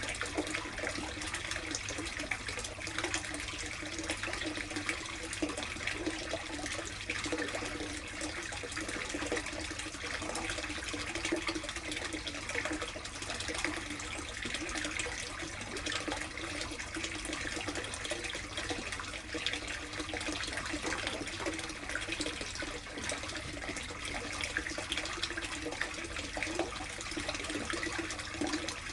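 Steady running, splashing water in a plastic koi tub.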